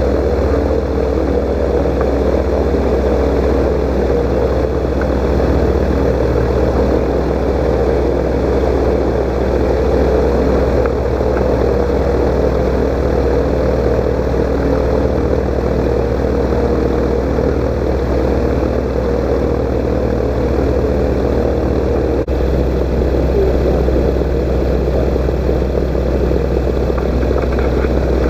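Microlight trike's engine and pusher propeller running at a steady, unchanging pitch, heard close up from a camera mounted on the aircraft.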